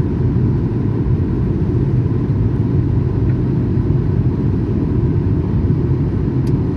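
Airliner cabin noise: a steady low rumble of jet engines and airflow heard from inside the cabin, with a faint steady hum on top.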